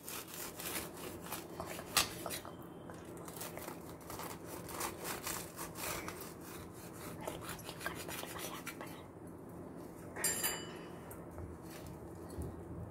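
Knife sawing through crisp toasted bread in many quick strokes, the crust crunching and the blade scraping against a steel plate.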